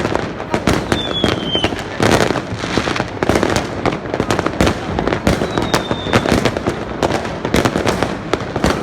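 Fireworks going off in a dense, continuous barrage of bangs and crackles, with two brief high whistles, one about a second in and one a little past halfway.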